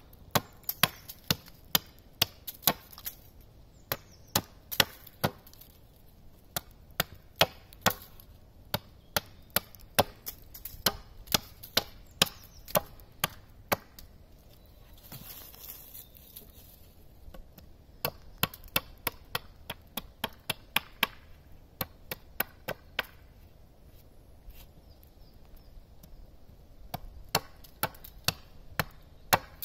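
Small axe chopping a point onto the end of a wooden stake stood on a stump: runs of sharp chops into the wood, about two to three a second, broken by pauses of a few seconds.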